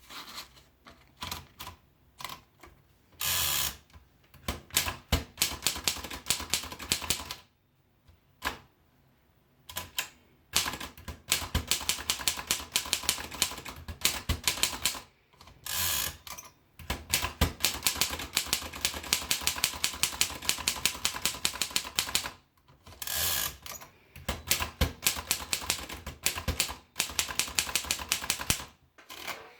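Underwood Portable four-bank manual typewriter being typed on in quick runs of keystrokes, broken by short pauses, with three longer noises of about half a second each between runs.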